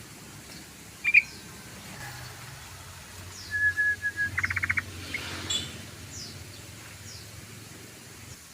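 Yellow-vented bulbul (trucukan) calling: a sharp short note about a second in, then a held whistle and a quick rattling trill a little before halfway, with faint high chirps scattered around them.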